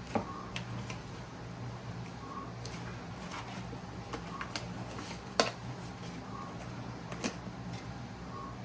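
Small clicks and taps of a cardboard product box and its packaging being handled and opened, with three sharper knocks, about a fifth of a second in, midway and a little after two-thirds through, over a steady low hum.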